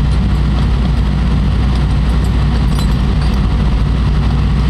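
Steady low rumble of an idling engine, like a truck's diesel, running evenly.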